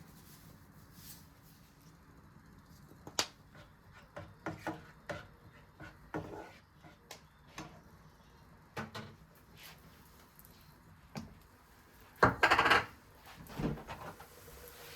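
Household objects being handled: scattered light knocks and clicks, with a louder clatter lasting about half a second near the end.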